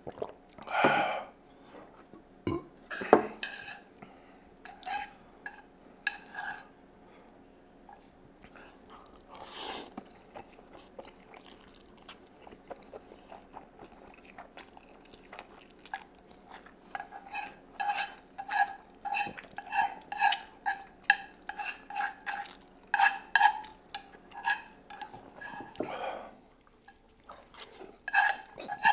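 Noodles being slurped and chewed, with a quick run of short slurps in the second half. A sharp knock about three seconds in, as of a glass or utensil set down.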